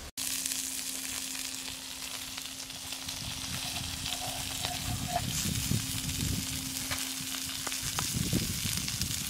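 Pig liver sizzling on a hot flat stone over a wood fire: a steady frying hiss with scattered small pops.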